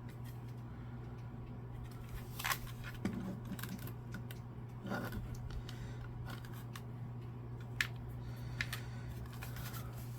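Scattered sharp plastic clicks and taps as an Xbox One controller's parts are handled and pressed together, a few separate clicks a second or more apart over a steady low hum.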